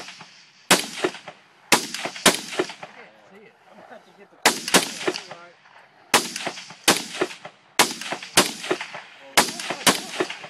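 Gunshots, about fourteen in quick succession at an uneven pace, some only half a second apart, each with a short echoing tail.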